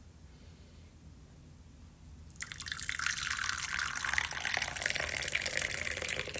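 Tap water running for about four seconds, starting a couple of seconds in and shutting off abruptly near the end.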